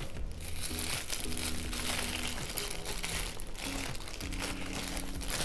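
A printed paper food wrapper crinkling as it is unfolded by hand, over background music.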